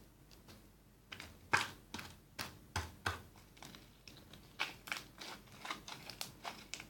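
Glitter-glue slime being worked, giving a run of about twenty sharp crackles and pops, irregularly spaced, starting about a second in; it crackles a lot, the air bubbles trapped in it bursting.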